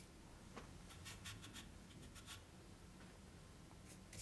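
Faint strokes of a paintbrush on paper: a series of short, light brushings laying on white paint, with brief pauses between them.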